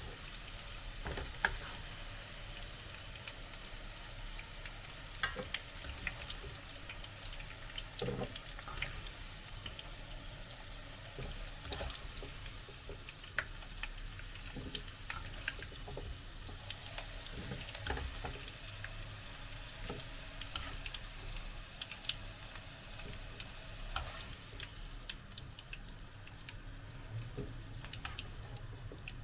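Cooking oil sizzling in a frying pan, with scattered sharp clicks and taps of a utensil against the pan.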